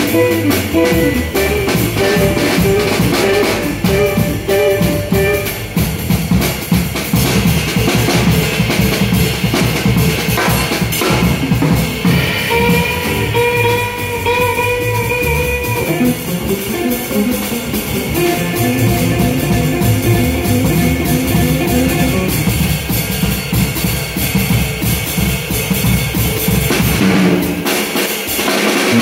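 A live jazz trio plays: archtop electric guitar lines over upright double bass and a drum kit with cymbals. Near the end the bottom drops away for a moment, leaving the guitar mostly alone.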